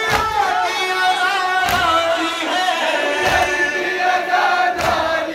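A noha (Urdu mourning lament) chanted by a crowd of mourners over loudspeakers, punctuated by heavy chest-beating strikes in unison about every second and a half, four in all.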